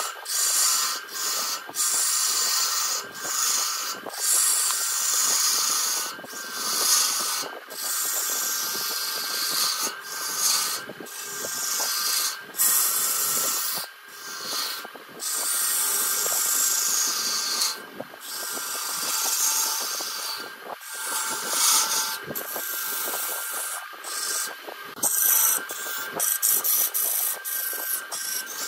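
A turning tool cutting into wood spinning on a wood lathe: a hissing, scraping cut that breaks off briefly every second or two as the tool lifts and goes back in, over a steady high whine.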